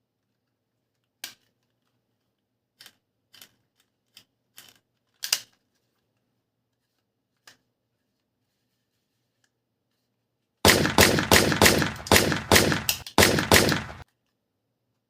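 A handful of separate clicks from handling a toy gun, then the toy gun firing a rapid burst of shots, about three a second for roughly three seconds, with a brief break near the end.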